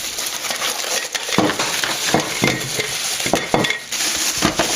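Packaging being pulled off and handled up close: a continuous crinkling and rustling, with many sharp clicks and knocks.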